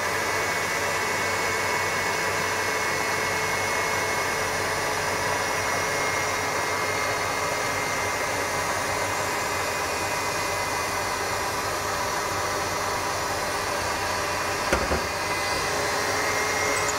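KitchenAid Heavy Duty stand mixer running at full speed, its whisk whipping egg whites while hot sugar syrup at 121 degrees is poured in, making Italian meringue. A steady motor whir with a faint whine, and a light knock near the end.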